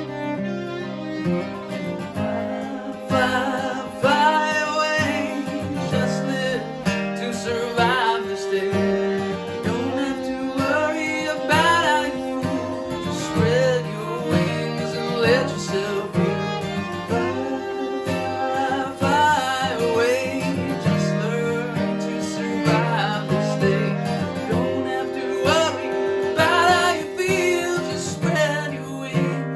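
A folk-bluegrass string band playing an instrumental break. A fiddle carries a sliding melody over strummed acoustic guitar.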